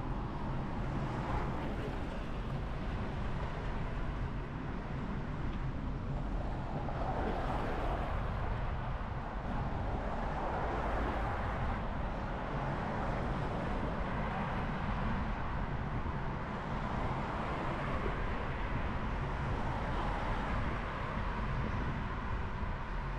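Steady low rumble and hiss of a moving vehicle heard from on board, with a soft wash of outdoor background noise that swells a little now and then.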